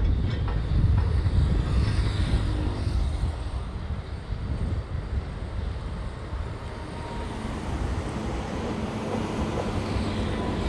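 Low rumble of a train on the railway tracks, strongest at first and easing off. A faint steady hum comes in during the second half as an electric locomotive draws alongside.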